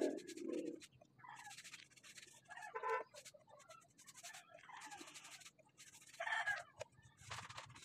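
Paintbrush swishing over wooden slats in repeated strokes as varnish is brushed on. Short animal calls come through: the loudest in the first second, and others about three and six seconds in.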